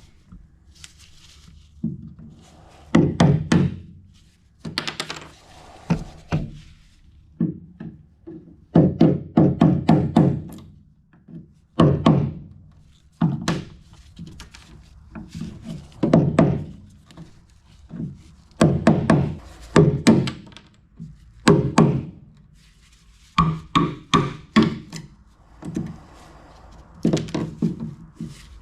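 A mallet striking a chisel to cut out a glued-in wooden piece, in bursts of several quick blows repeated every second or two, each blow a hard knock with a short low ring.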